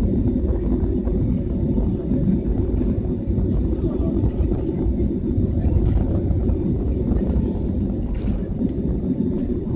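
Steady low rumble of airliner cabin noise, the jet engines and the aircraft rolling along the ground, heard from inside the cabin.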